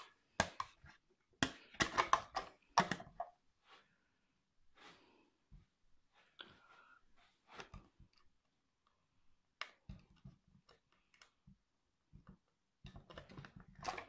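Thin plastic RC car body shell being handled and fitted onto the chassis: clattering and crinkling plastic with sharp clicks, busiest in the first few seconds, scattered clicks after that, and another quick run of clicks near the end.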